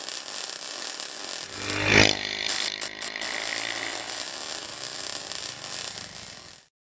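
Intro sound effect: a steady rushing noise with a swelling whoosh and hit about two seconds in, cutting off abruptly just before the end.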